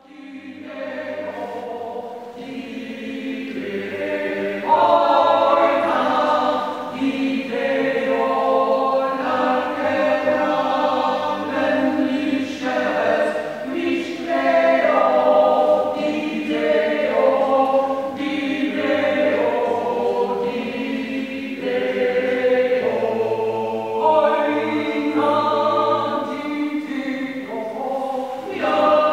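Small mixed choir of five voices singing Georgian part-song unaccompanied, several voices moving over a low held note. The singing starts softly and grows fuller about five seconds in.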